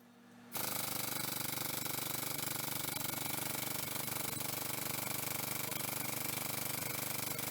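Air-over-hydraulic 8-ton ram's air-driven pump running on shop air and pumping the engine hoist ram up: a steady, fast chatter that starts about half a second in.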